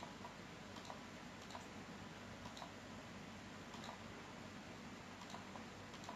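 Faint computer mouse clicks, a handful spaced irregularly, over a steady low hum. They are clicks on the keys of an on-screen graphing calculator as a formula is entered key by key.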